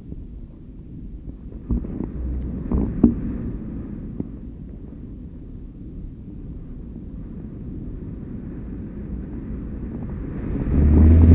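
Wind rumbling on the microphone of a GoPro HD2 hanging from a kite line, with a few short clicks about two to three seconds in. The rumble swells sharply near the end.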